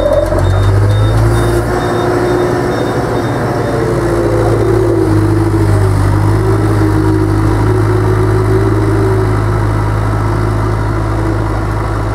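JCB telescopic handler's diesel engine running steadily under load as it drives a bucket of grass silage up onto the clamp. A whine that rises and falls sits over the steady engine note.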